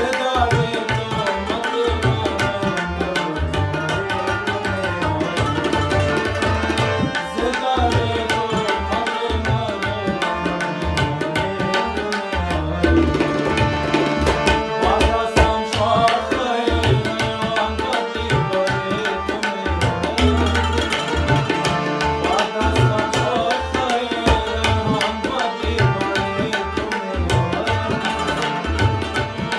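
Tabla, harmonium and Afghan rubab playing together. The tabla's dense strokes are the loudest part, under the harmonium and plucked rubab carrying the melody.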